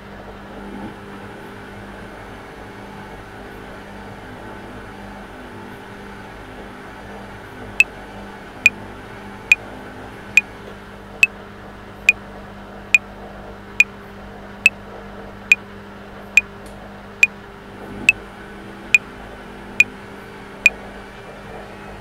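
Top-loading washing machine running on a cotton 60° wash with a steady hum. About eight seconds in, a metronome starts clicking at 70 beats per minute and gives sixteen sharp clicks, four bars of 4/4, then stops a little before the end.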